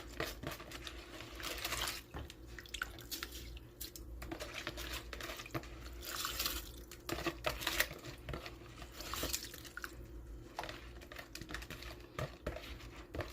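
Uncooked rice being handled in water, the grains crunching and the water splashing and dripping in short, irregular sounds.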